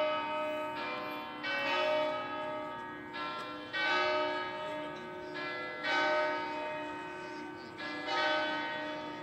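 Church bells ringing, several bells struck in turn every second or two, each ringing on and overlapping the next.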